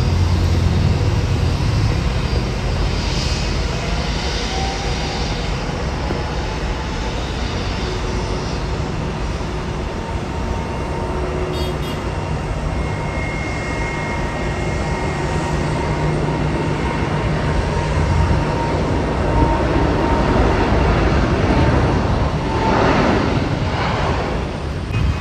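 Jet airliner engines running: a steady rumble with a thin, steady whine above it, a little louder in the last few seconds.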